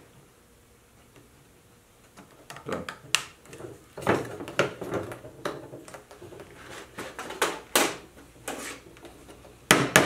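Wooden beehive frame handled and knocked on a wooden workbench: irregular knocks and clatters starting a couple of seconds in, ending with a few sharp hammer taps on the frame's nails.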